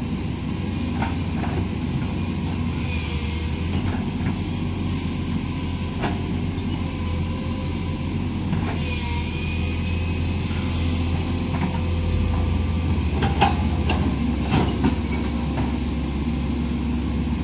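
A large SANY hydraulic excavator's diesel engine runs steadily with a heavy low rumble while it digs its bucket into mud. Short knocks come now and then, a cluster of them late on.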